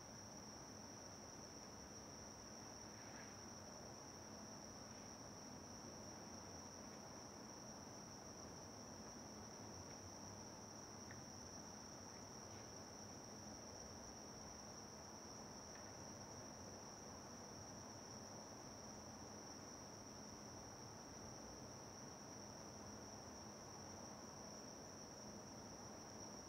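Insects chirring in one steady, unbroken high trill over faint background hiss.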